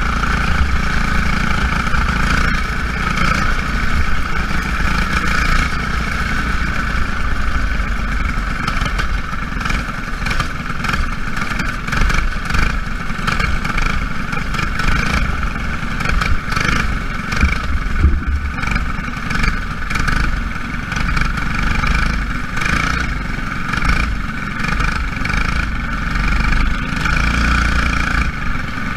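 Racing engines of small Jr Lite race cars running laps in a feature race, a steady loud drone that never drops out.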